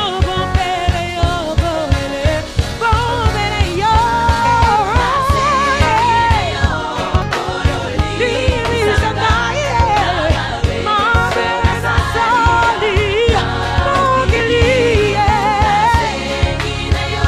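Gospel song: a woman's lead vocal with vibrato and choir voices behind her, over a band with a steady beat and a strong bass.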